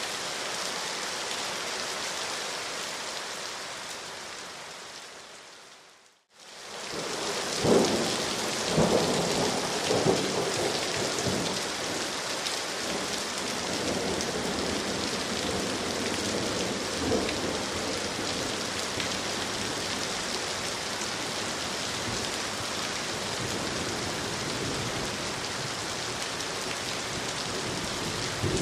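Steady night rain hissing. It fades out to silence about six seconds in and comes back a moment later. After that comes a run of short, louder dull thuds, most of them in the few seconds just after it returns.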